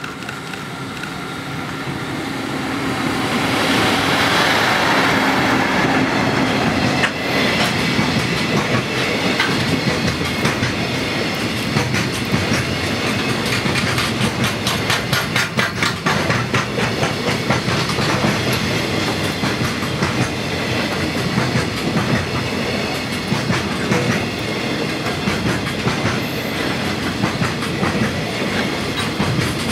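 EF65 electric freight locomotive passing at speed, loudest about four seconds in, followed by a long train of container wagons whose wheels beat out a steady, rhythmic clickety-clack over the rail joints.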